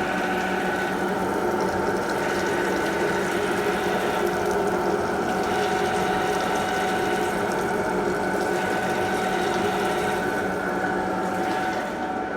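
CNC lathe running: a steady machine hum with several held tones over a hiss, dropping a little in level near the end.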